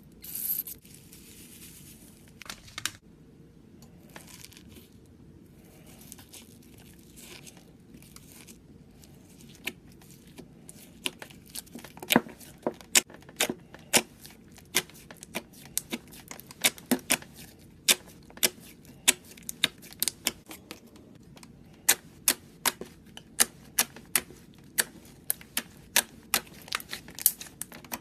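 Slime being handled, with soft squelching and hissing at first. From about ten seconds in it gives a run of sharp, irregular clicks and pops, roughly two a second, as it is pressed and poked.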